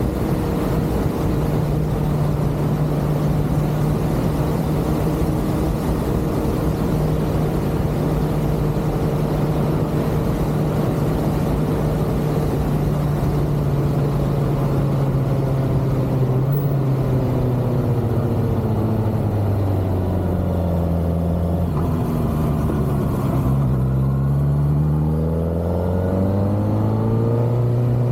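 Kawasaki ZX-6R's inline-four engine running at steady revs with wind rush. About two thirds of the way through, the revs fall away for several seconds as the bike slows, then rise again near the end as it accelerates.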